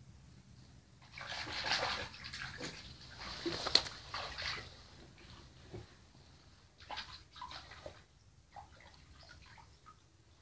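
Wet squelching and sloshing of a waterlogged mat of roots and pond grass being handled and pulled apart by hand, busiest from about a second in to the middle, with one sharp click partway through and a few smaller wet bursts later on.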